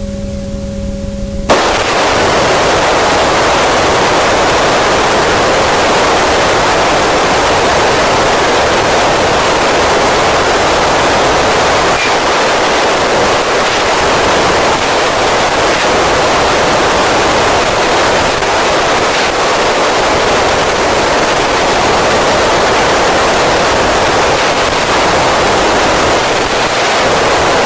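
Steady loud FM receiver static from an Icom ID-5100 tuned to the AO-27 satellite downlink, with no voices coming through. A quieter stretch with a faint low hum ends about a second and a half in, when the hiss jumps up, the sign of the satellite's signal dropping out and the squelch standing open.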